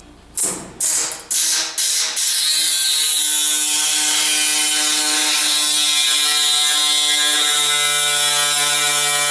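A power tool shaping sheet steel: it is switched on in several short bursts, then runs steadily with a loud, rapid buzzing rattle.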